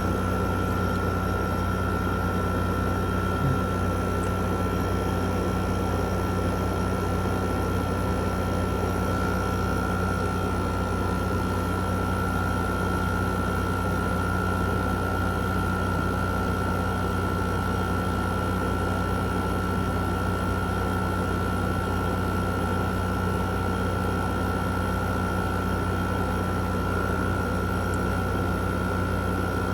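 2016 Frigidaire 5,000-BTU window air conditioner running steadily: an even hum and fan noise with a constant high-pitched whine. It is the sound of normal operation; the owner says the unit works perfectly with no problems.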